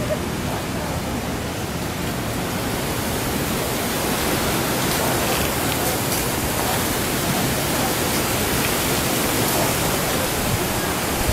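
Steady rushing noise, an even hiss with no distinct sounds in it, growing slightly louder about four seconds in.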